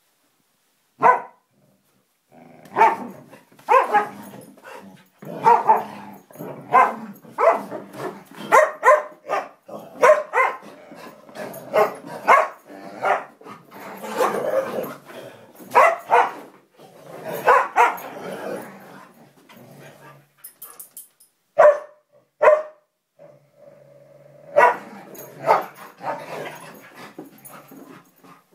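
A Siberian Husky and a Samoyed barking and growling at each other in a friendly play fight. The barks come in quick runs with short pauses. Most of them fall in the first two-thirds, and a few more come near the end.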